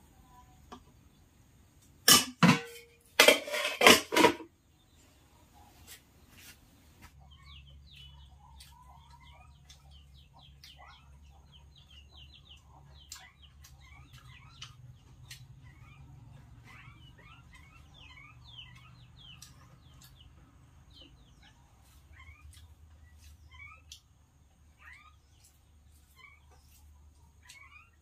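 A metal ladle clanks and scrapes against a metal cooking pan and plate for about two seconds, one strike briefly ringing. After that come many faint short high chirps over a low steady hum.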